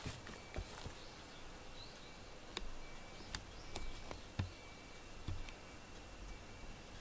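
A cat playing with a stuffed toy on foam floor mats: irregular soft thumps and light taps as the toy is flung and lands and paws come down, the sharpest right at the start and again about four and a half seconds in.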